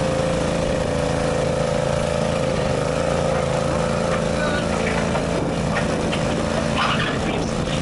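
Modified lawn tractor engine running steadily at a near-constant pitch as it pulls, with a slight waver in pitch about two and a half to three seconds in.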